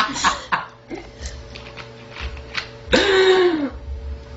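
A girl's single loud belch about three seconds in, lasting over half a second, its pitch sinking at the end.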